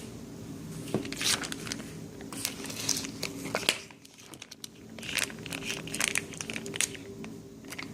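Plastic food packaging crinkling and rustling as it is handled and pulled open, in irregular bursts with a short lull about halfway through. A steady low hum runs underneath.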